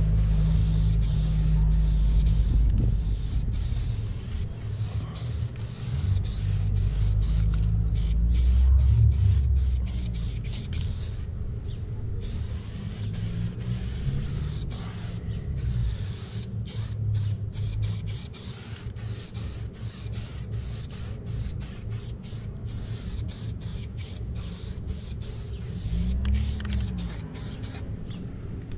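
Aerosol spray paint can hissing in many short bursts as paint is sprayed onto a wall, the nozzle pressed and released over and over. Under it runs a steady low rumble, loudest in the first half.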